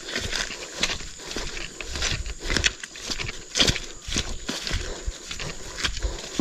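Footsteps on grass and fallen palm fronds, an uneven series of soft thuds and rustles, with clothing rubbing and knocking on the microphone as the carrier walks.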